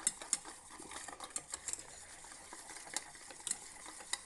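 A spoon stirring gram-flour (besan) batter in a small steel bowl, with irregular light clicks and taps of the spoon against the metal.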